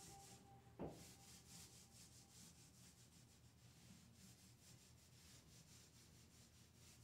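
Near silence with faint rubbing: a small paint roller being rolled over a wall. A held musical note from before cuts off with a click under a second in.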